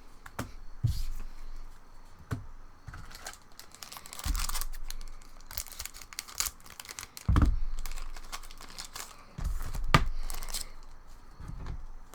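A foil trading-card booster pack being torn open and its wrapper crinkled, in several separate bursts of tearing and crackling with small clicks of handling in between.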